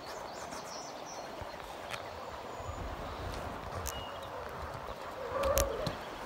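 Footsteps crunching on a gravel riverbank over the steady rush of flowing river water, with a brief louder noise about five and a half seconds in.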